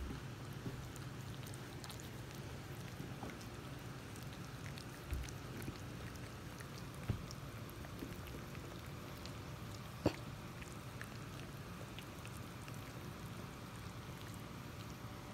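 Maltipoo puppies licking each other's faces: a run of small wet licking and smacking clicks over a low steady hum, with a few sharper knocks about five, seven and ten seconds in, the last the loudest.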